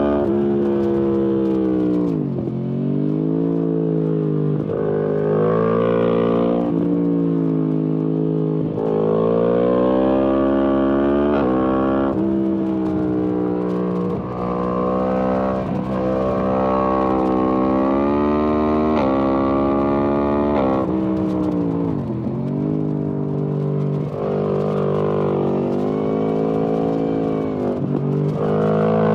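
Yamaha MT-10 SP crossplane inline-four running through an Akrapovic exhaust, its revs climbing and dropping repeatedly through gear changes; it slows down three times and pulls away again.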